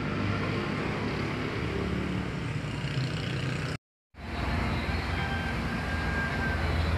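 Car engine and tyre noise heard from inside a moving car: a steady low rumble. It drops out for a moment just before four seconds in, then carries on the same.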